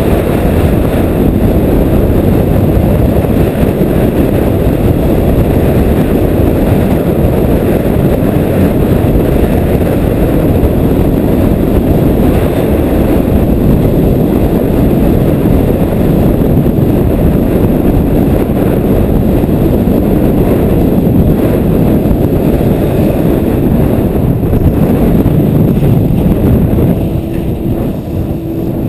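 Strong wind buffeting the microphone of a camera carried at speed downhill: a loud, steady, low rumble with no break. A faint steady hum comes in near the end.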